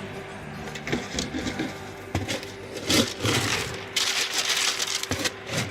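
Irregular rustling and knocking of things being handled, several short loud knocks among softer scraping, over a faint steady hum.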